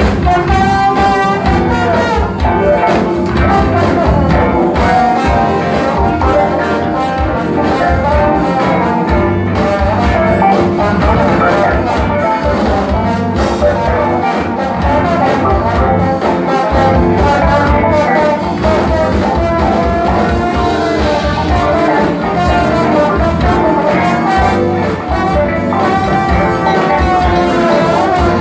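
Live 1970s-style funk band playing: a horn section carries melodic lines over electric guitar, bass and drums with a steady beat.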